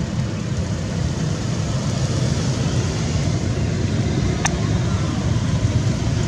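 Steady low rumbling background noise, with one short sharp click about four and a half seconds in.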